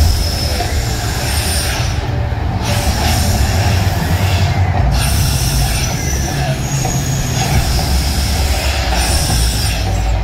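Gas flame jets of the Mirage volcano firing in long hissing blasts, breaking off briefly about two seconds in and again around four and a half seconds, over a steady low rumble.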